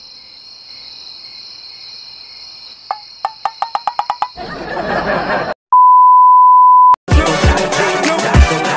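Edited-in sound effects: a series of beeps that quicken, a short burst of noise, then a loud, steady single-pitch beep about a second long. Near the end, music with heavy bass beats comes in.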